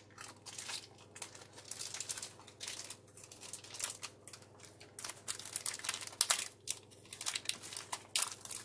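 Plastic packaging bag being crinkled and torn open, irregular crackling rustles throughout.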